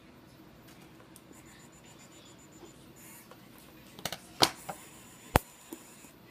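A 3D printing pen being handled on a tabletop: a quick cluster of sharp clicks and taps about four seconds in, then one louder single click a second later, over a faint steady hum.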